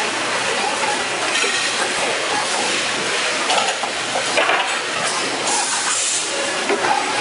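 CNC wire-bending machine working in a factory: a steady hiss of machinery noise, with a few short metallic knocks around the middle.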